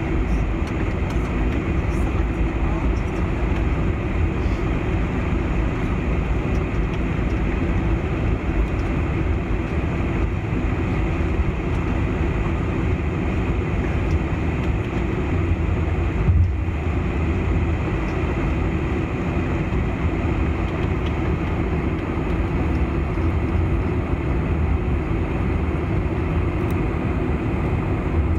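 Steady cabin noise of a Boeing 747-400 taxiing: the low rumble and hum of its four engines at taxi power, heard through the fuselage, with one brief bump about 16 seconds in.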